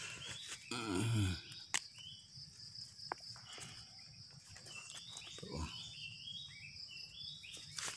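Outdoor rural ambience: a steady high insect drone, with short animal or bird calls near the start and again in the second half. A couple of brief clicks come from handling.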